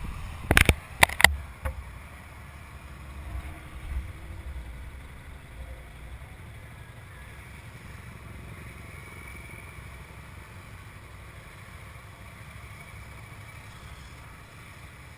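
Motorcycle engines from a passing column of motorcycles and a bike waiting close by, a low steady rumble. A few sharp knocks come about half a second to a second in.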